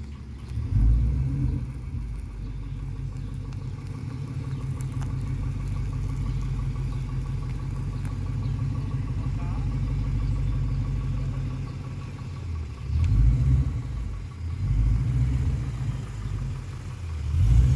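Ford Mustang GT's 5.0-litre V8 running at low revs as the car creeps forward. The engine note swells briefly about a second in and a few more times near the end, like light throttle.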